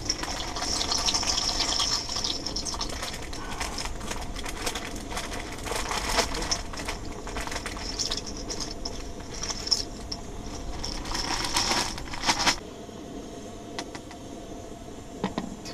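Portable gas stove hissing under a pot of boiling water, with scattered clicks and knocks. The hiss stops abruptly about twelve and a half seconds in.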